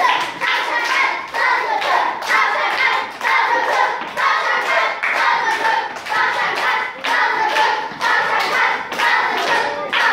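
A group of children clapping their hands in a steady rhythm while singing together in unison.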